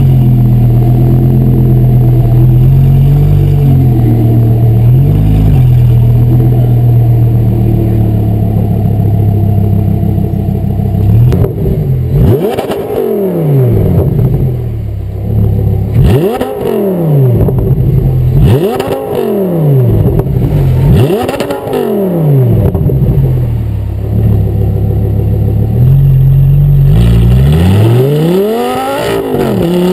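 Audi R8 V10 GT's 5.2-litre V10 through an ARMYTRIX titanium exhaust, running at a low, even note for about ten seconds. Then it is revved hard about four times in a row, each rev rising and falling in pitch, settles briefly, and revs up again near the end.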